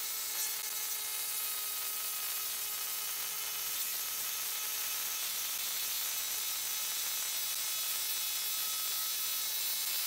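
Makita cordless impact wrench hammering a long lag screw into a wood stump, played back sped up many times over. The result is a steady, high-pitched buzz with a couple of steady tones running through it.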